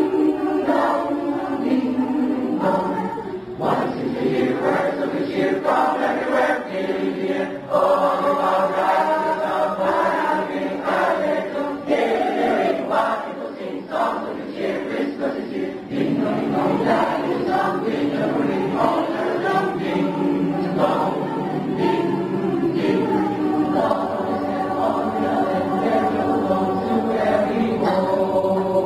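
A large mixed choir of boys' and girls' voices singing together, with sustained sung notes.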